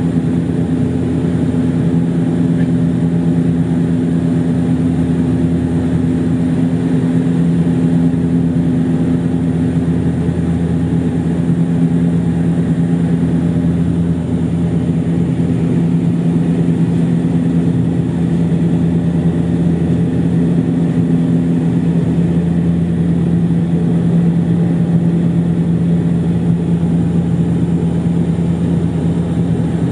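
Cabin drone of a Bombardier Dash 8 Q400 climbing out after takeoff: its Pratt & Whitney PW150A turboprops and six-blade propellers make a loud, steady low hum with several steady tones, heard from a window seat beside the propeller. One of the higher tones fades out about three-quarters of the way through.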